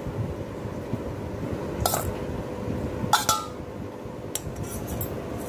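A stainless steel bowl clinking against a glass bowl as boiled diced potatoes are tipped out of it: two sharp clinks about two and three seconds in, the second ringing briefly, then a fainter one, over a low steady hum.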